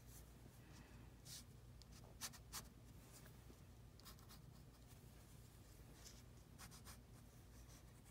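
Ink pen drawing on paper: several short, faint scratches of the nib as lines are sketched, the loudest a pair a little over two seconds in, over a steady low hum.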